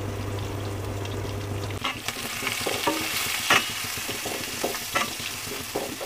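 Shallots frying in hot ghee in a stainless steel pot, sizzling, while a metal spoon scrapes and clinks against the pot as they are stirred. A low steady hum stops about two seconds in, after which the sizzle and the spoon clicks take over.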